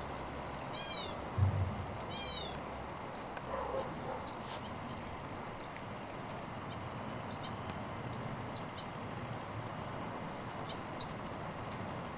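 Cavalier King Charles Spaniel puppy giving two short, high-pitched whines about a second apart early on, with a thump between them; the rest is faint outdoor background with a few small ticks.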